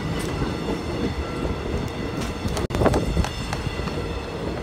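Korail Mugunghwa-ho passenger coaches rolling past close by, with the steady rumble and clatter of wheels on the rails and one sharper clack a little after the middle.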